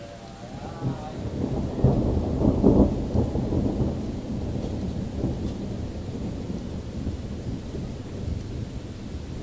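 Thunder rumbling over steady rain. The rumble swells about a second in, is loudest around two to three seconds, then slowly dies away.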